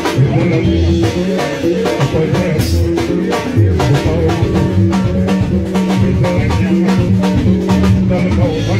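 Live Congolese rumba band playing upbeat dance music: a steady drum beat under held bass and keyboard notes, with some singing.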